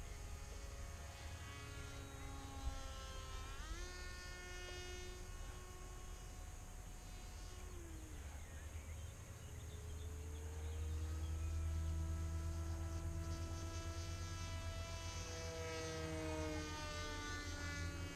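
A 3D-printed radio-controlled model plane's motor and propeller whining overhead as it flies past. The pitch swoops up sharply a few seconds in, then glides up and down with speed and throttle, over a low rumble that grows louder toward the middle.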